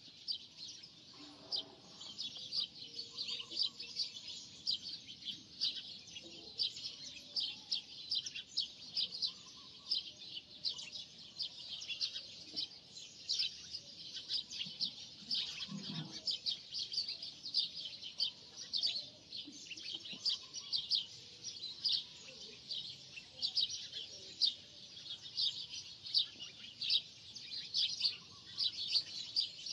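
Small birds chirping continuously, many quick high chirps a second, with a faint dull knock from the work about halfway through.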